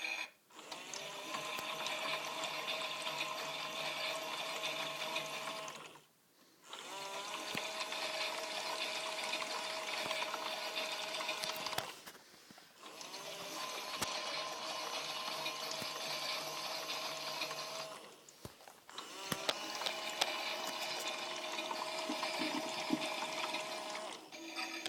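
Toy Miele W1 washing machine running on low batteries: its small motor whirs with water swishing in the drum. The motor stops briefly about every six seconds and starts again.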